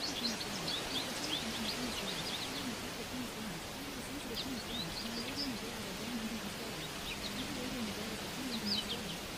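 Birdsong ambience: clusters of quick, high chirps every second or two over a steady hiss. A faint, low, wavering voice runs underneath, the buried affirmation track of a subliminal.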